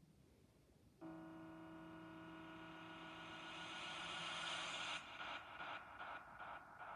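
Eerie horror sound effect: a sustained buzzing tone with many overtones starts suddenly about a second in and grows louder. About five seconds in it breaks off into a rapid pulsing, about two to three beats a second.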